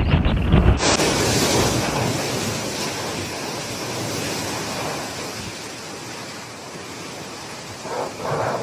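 Typhoon wind buffeting the microphone in heavy low gusts. After a cut about a second in, a steady hissing roar of storm wind and rain takes over and slowly eases.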